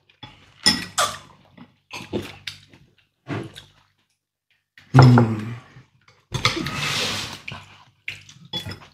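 Table eating sounds: slurping noodle soup and sipping water from a glass, among short clicks of chopsticks and spoons against bowls and glasses. A longer slurp comes a little past the middle.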